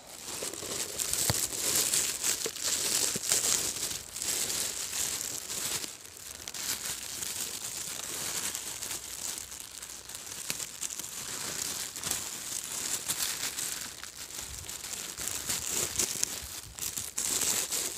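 Irregular rustling and crackling of grass and weeds as someone walks through dense vegetation on a ditch bank.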